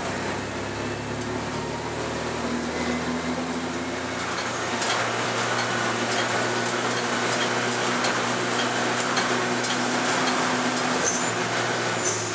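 Alfa Romeo 155 Turbo race car's engine heard from inside the stripped cabin, running at a fairly steady note under way, over road and wind noise. It gets a little louder about four to five seconds in, with small rattles and clicks.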